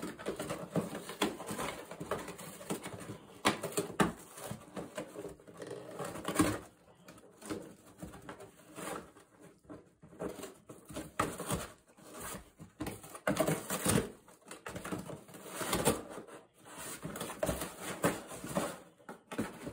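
Border collie tearing and chewing apart a cardboard box: irregular ripping, crunching and scraping of cardboard, in uneven bursts with short pauses.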